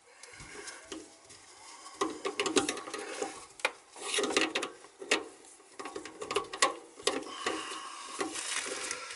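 A gloved hand twisting and working a sink drain pipe joint: irregular scraping, rubbing and clicking of the metal pipe and plastic fittings, louder from about two seconds in.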